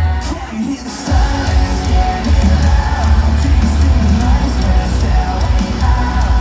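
Rock band playing live in an arena: singing and shouted vocals over heavy bass, drums and guitar. The bass and drums drop out for a moment near the start, and the full band comes back in about a second in.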